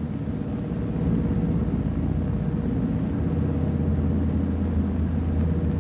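Flying boat's piston engines droning steadily in flight, a low throbbing rumble with a steady hum over it.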